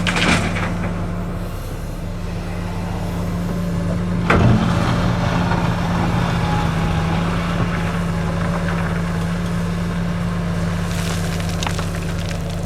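Komatsu PC450LC-7 excavator's diesel engine running steadily, with one sharp knock about four seconds in and a few lighter clicks near the end.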